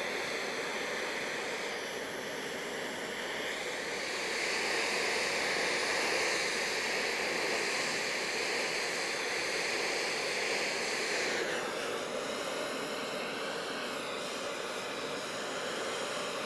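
Handheld gas torch burning with a steady hissing flame, preheating the edge of an aluminum wheel rim ahead of TIG welding. The hiss grows a little louder and brighter about four seconds in and eases back a little after eleven seconds.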